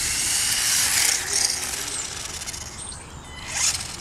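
1:18-scale 4WD RC drift car's brushed electric motor whining as it is driven and drifted, rising and falling with the throttle: louder surges about a second in and again just before the end.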